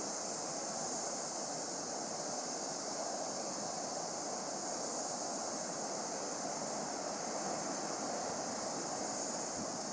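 Steady, even wash of distant surf breaking on a rocky shore, mixed with wind, under a constant high hiss; no single wave stands out.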